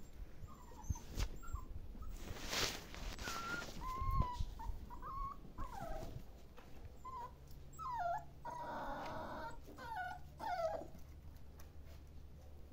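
Belgian Malinois puppies whimpering in a string of short, high whines, several falling in pitch, with a rougher, louder cry about nine seconds in. Fur and handling rustle against the phone about two and a half seconds in.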